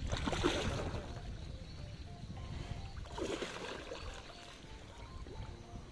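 A hooked giant snakehead (toman) thrashing at the water's surface, with two splashes, one near the start and one about three seconds in, over a low rumble.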